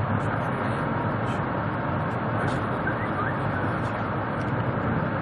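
Steady rushing rumble of a high-speed bullet train at speed, heard from inside the passenger cabin: wheel, track and air noise at an even level.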